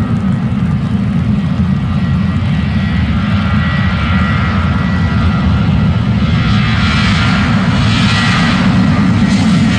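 Boeing 737-800's CFM56-7B turbofan engines at takeoff thrust during the takeoff roll: a steady deep rumble with a thin fan whine, growing louder, and a harsher high roar building from about two thirds of the way in as the jet rolls closer.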